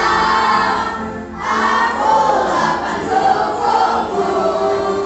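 Several voices singing together as a choir over music, with a short break about one and a half seconds in.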